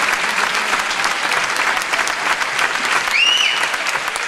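Audience applauding steadily with dense, fast clapping, and one short high-pitched call rising over it about three seconds in.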